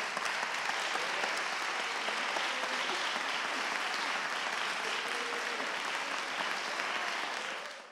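Congregation applauding steadily, a dense clatter of many hands clapping, fading out near the end.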